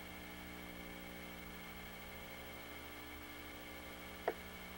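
Faint steady electrical hum with light hiss, several steady hum tones with no other activity. A single brief click about four seconds in.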